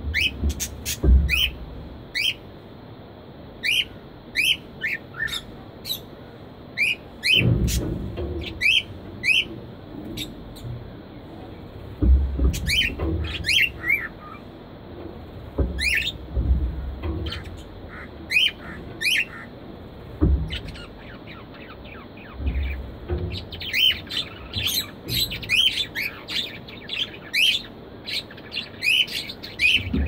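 Budgerigars chirping and squawking in an aviary: many short, sharp calls that drop in pitch, coming in loose runs and growing busier near the end, with a few low rumbles under them.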